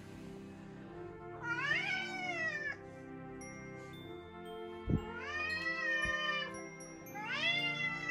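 House cat meowing three times, each call rising and then falling in pitch, begging for its food by its bowl. A short thump comes just before the second meow, and soft background music runs underneath.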